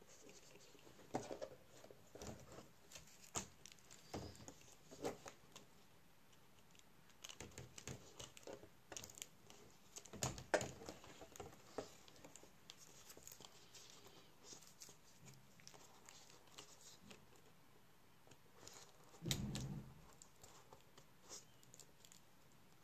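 Quiet handling noises from working on a laptop LCD panel: scattered light clicks, taps and crinkles of plastic and foil as the panel and its flat display cable are moved. A short, duller knock a little after 19 seconds is the loudest sound.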